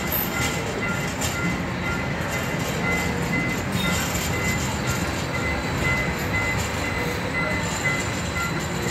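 Brookville Liberty streetcar rolling past close by on curved track: a steady rumble of wheels on rail, with short high tones repeating near the start and again through the second half.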